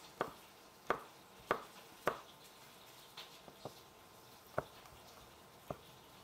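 Chef's knife chopping red onion on a wooden cutting board: separate knocks of the blade on the board, four firm ones in the first two seconds, then fewer and softer ones.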